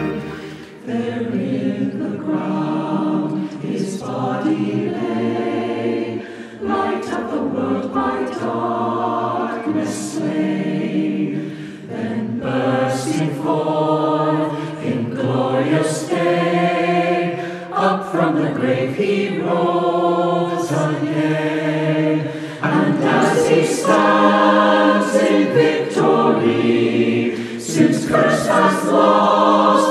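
Mixed choir of men's and women's voices singing in parts, phrase after phrase with short breaths between them.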